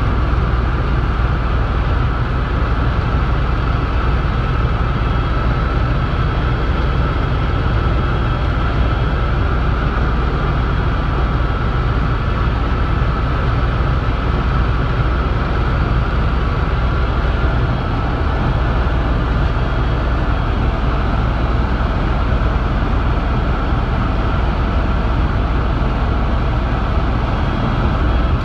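Helicopter in cruise flight heard from inside the cabin: a loud, steady drone of turbine engine and rotor, with a faint steady whine above it.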